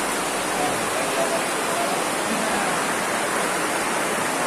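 Heavy rain pouring on a tent roof: a steady, dense hiss, with faint voices murmuring under it.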